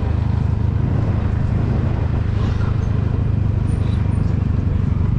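Motorcycle engine running steadily under way, a strong low drone, with wind rushing over the helmet-mounted microphone.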